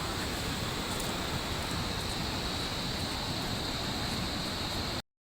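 Jang waterfall rushing: a steady, even wash of falling water. It cuts off abruptly near the end.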